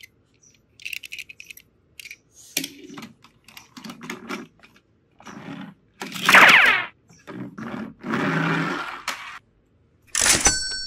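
Plastic toy trains and a plastic toy ramp being handled and moved on a wooden tabletop: scattered clicks and knocks, and two longer scrapes in the middle. Near the end a button on a battery-powered toy train is pressed and it starts up with electronic tones.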